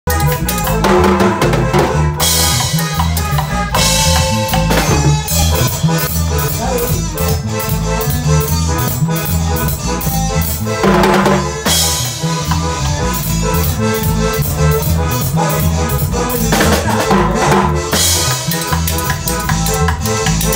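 Small live band playing an upbeat Latin-style tune on electric guitar, keyboard and drum kit, with cymbal crashes several times.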